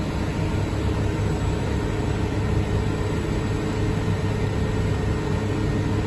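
SunRain 10 kW heat pump outdoor unit running steadily in its defrost cycle, a constant mechanical hum with a faint held tone.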